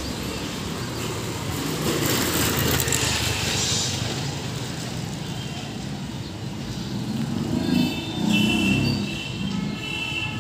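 A motor scooter rides past close by, its engine and tyre noise swelling for a couple of seconds over general street noise. Later a brief louder noise and some faint pitched sounds come over the background.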